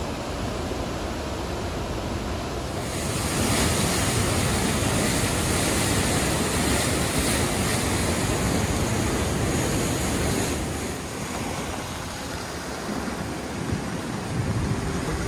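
Flooded river water rushing and churning in a steady, even rush, louder from about three seconds in and easing somewhat about ten seconds in.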